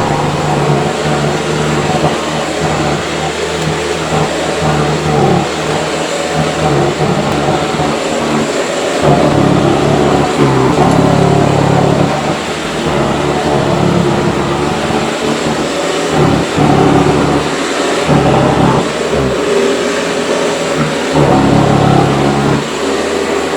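Hoover Decade 80 upright vacuum cleaner running as it is pushed over the floor, a steady motor hum and rush of air whose low tone swells and drops every few seconds with the strokes.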